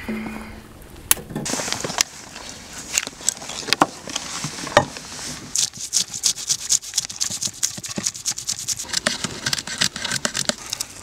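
Knife scraping scales off a coarse-salted pike on a wooden cutting board: quick, rasping strokes that come faster and denser from about halfway.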